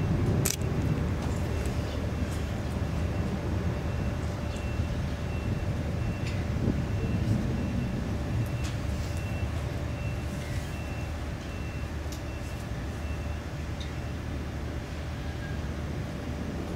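Caltrain Stadler electric multiple unit creeping slowly along the track: a steady low rumble with a faint steady hum and a faint, on-and-off high tone above it.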